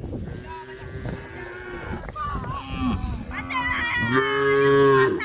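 Several cows mooing, their calls overlapping, the loudest and longest one coming about four seconds in.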